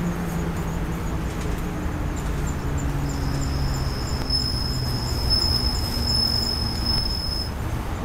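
Night insects singing: a faint, rapidly repeated high chirping throughout, joined about three seconds in by a steady high-pitched trill that stops shortly before the end. Under them, a low rumble of traffic, with an engine hum slowly falling in pitch as a vehicle passes.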